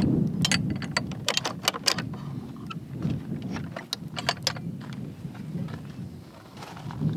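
Wind buffeting the microphone with a steady low rumble, and irregular sharp crunching clicks over it, thickest in the first two seconds and again around four seconds in.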